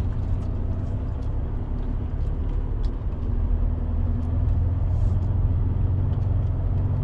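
Semi-truck's diesel engine running steadily as the truck creeps forward, with faint scattered clicks and rattles. The engine grows a little louder about four seconds in.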